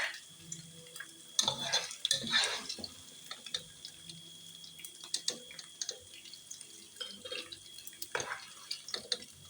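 A cooking spoon scraping and clinking against a pan as fried crayfish is transferred onto a plate: irregular sharp clicks, with two louder scrapes about one and a half and two and a half seconds in.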